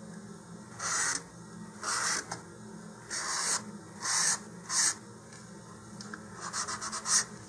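Small piece of 120-grit sandpaper rubbed on a glassine-finished paper rocket body tube, scuffing off the shiny finish so the fin glue will hold. It goes in short scratchy strokes about once a second, then a quick run of shorter strokes near the end.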